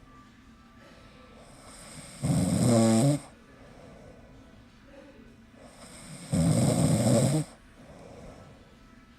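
Snoring: two loud, low, rattling snores about four seconds apart, with quieter breathing between them.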